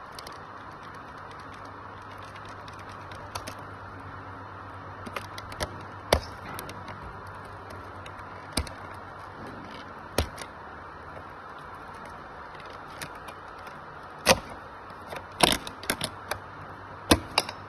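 Scattered sharp clicks and knocks of cable connectors being unplugged from an ultrasound machine's power supply board and the board being handled, coming irregularly and most thickly in the last few seconds.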